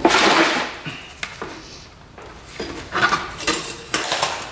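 Metal hand tools clanking and scraping against the dirt bike's front-wheel hardware while a stuck fastener is worked on, opening with a loud rush of noise and followed by scattered knocks and scrapes.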